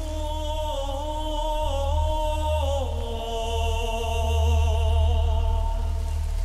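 Film score: a held, wavering melody over a deep low drone, stepping down in pitch about three seconds in.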